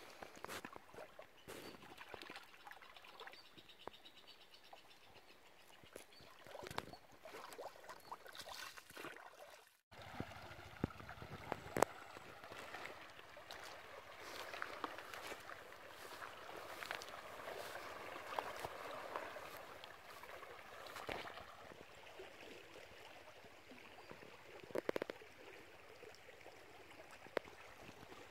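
Faint sound of a shallow river flowing and trickling over gravel, with scattered small clicks.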